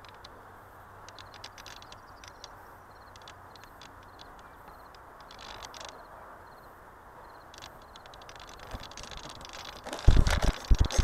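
Quiet hiss with scattered faint ticks on a model plane's onboard camera microphone while the plane sits in the grass, with no motor running. About ten seconds in there are loud, uneven bursts of rumbling buffeting as the plane is jolted and turned.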